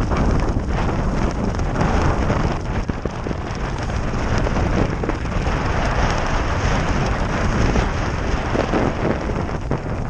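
Wind buffeting the microphone of a camera on a moving road bicycle, over the rumble and rattle of the bike's tyres on rough, cracked asphalt.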